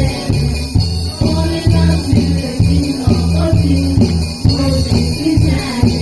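Church music: singing over a band, with a steady, regular bass beat.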